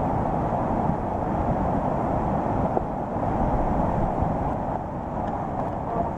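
Floodwater of a swollen stream rushing in brown white water against and under a wooden footbridge: a steady, low rushing noise.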